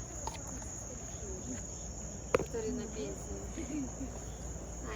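Steady high-pitched insect chorus, typical of night-singing crickets, with faint voices in the background and a single sharp click about two and a half seconds in.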